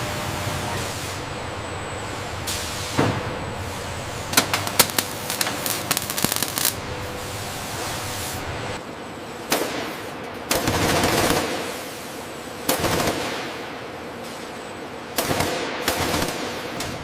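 Factory machinery noise: a steady hum, broken by short bursts of hiss and by a rapid cluster of sharp crackling clicks in the middle.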